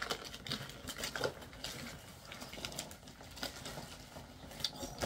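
Cardboard box and packaging being handled and opened: irregular rustling with scattered small clicks and knocks.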